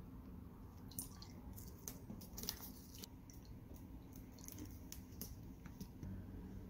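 Faint clicks and taps of a plastic condiment bottle and spoon handled over a small ceramic sauce dish while a soy-vinegar dipping sauce is mixed, with a few small wet drips.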